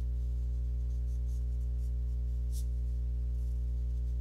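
Pencil scratching on sketchbook paper in short, light strokes while lines are drawn over, under a steady low hum.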